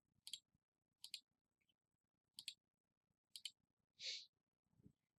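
Computer mouse clicks, faint, four of them about a second apart, the last one doubled, as a script is run again and again; a brief soft hiss follows near the end.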